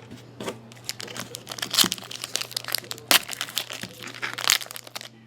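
Trading card pack packaging crinkling and rustling as it is handled and opened, an irregular crackle with a few louder crinkles.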